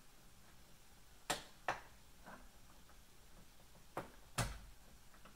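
Small metal parts knocking against an aluminium CNC router frame as it is assembled by hand: two sharp clicks about a second in, then two more near the end, the last with a dull thump.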